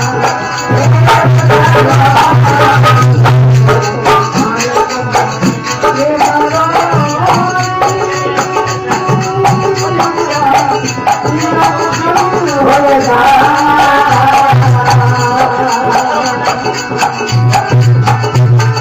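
Marwari folk bhajan music: melodic lines over a steady low drone, with rattling percussion keeping time.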